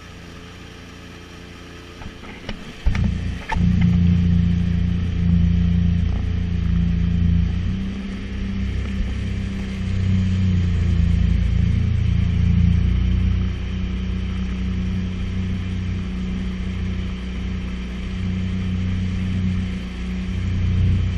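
Sea-Doo personal watercraft engine running at a low, steady idle, a few clicks about two to three seconds in, then the engine opening up and running loud and steady under throttle, with a heavy low rumble.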